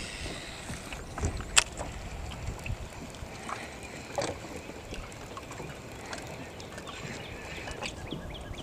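Fishing-boat ambience: a low steady rumble with a few scattered clicks and knocks, the sharpest a click about a second and a half in.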